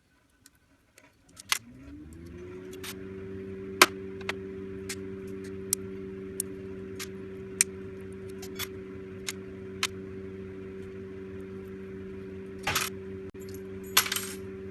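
A small electric motor spins up, rising in pitch for about a second, then runs steadily. Light metallic clicks and clinks come every half second or so over it.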